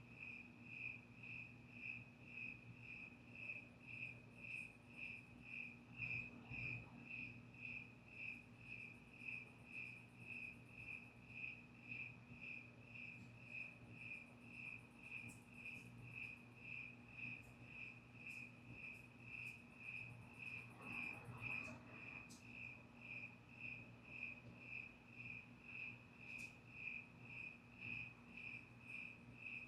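A cricket chirping steadily at night, even short chirps about two to three a second, with a faint steady low hum underneath.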